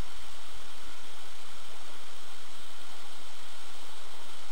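Steady rushing hiss of skiing downhill: wind over the camera's microphone and skis sliding on packed snow, with low wind buffeting in the first second.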